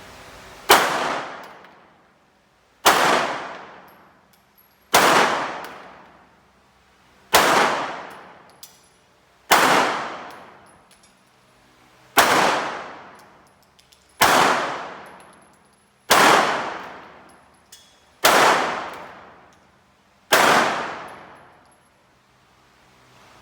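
Ten gunshots fired one at a time, about two seconds apart, each followed by a long fading echo.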